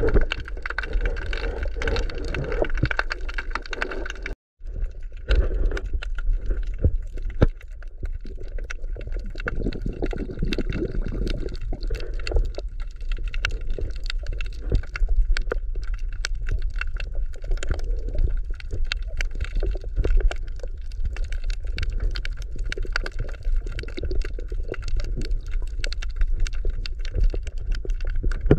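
Underwater sea ambience picked up by the camera: a steady low rumble of moving water with dense crackling clicks. It cuts out for a moment about four seconds in.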